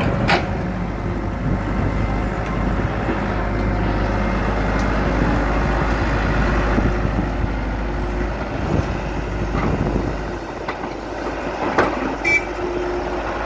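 Kato HD450SEV hydraulic excavator's diesel engine running steadily while it works, with a few short knocks, one right at the start and one near the end.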